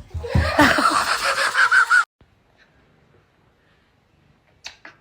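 A person laughing hard, cut off abruptly about two seconds in. After that it is quiet apart from two brief faint sounds near the end.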